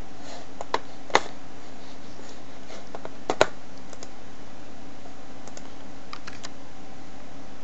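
A few sharp clicks of computer keys and mouse buttons: two about a second in, a close pair about three and a half seconds in, and a quick run of lighter clicks near the end, over a steady hiss.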